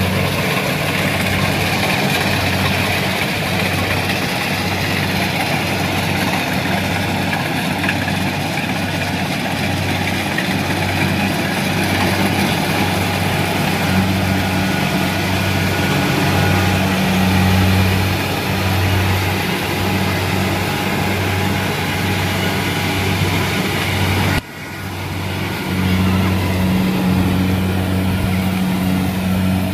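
Kubota rice combine harvester's diesel engine running steadily under load as the machine cuts and threshes rice, a deep engine hum overlaid with the clatter of the cutting and threshing machinery. The sound drops out for a moment about three-quarters of the way through and then carries on.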